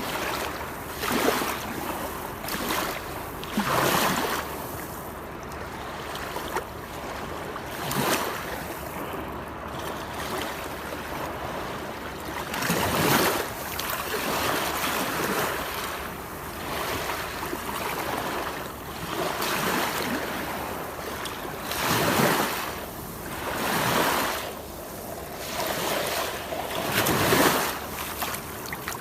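Waterfall: a steady rush of falling, splashing water, with louder surges of splashing every few seconds.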